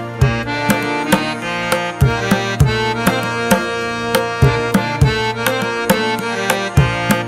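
Background instrumental music: a drum keeping a steady beat of about two strokes a second under sustained melodic tones.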